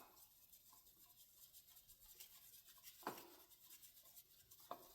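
Near silence with faint rubbing and light clicks of hand work, and one slightly louder tap about three seconds in.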